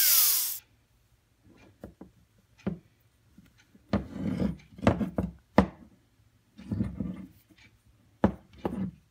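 A 4-inch angle grinder switched off and spinning down, its whine falling away within the first half second. Then scattered soft knocks and rubs as the freshly ground steel ball peen hammer head is handled and turned over on a tile surface.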